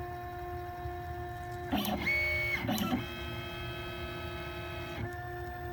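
OX CNC machine's stepper motors whining as they drive a pen holder back and forth across paper, drawing hatch lines. The pitch of the whine changes with each move, with a louder, busier stretch just under two seconds in that lasts about a second.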